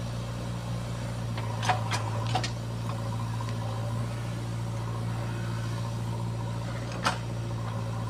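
JCB 3DX backhoe loader's diesel engine running steadily under hydraulic work as the backhoe arm swings and digs sand, with a few sharp knocks from the working machine, a cluster about two seconds in and one more near the end.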